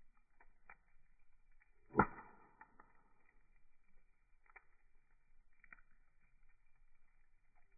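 Wood fire crackling: sparse small pops and ticks, with one loud sharp pop about two seconds in.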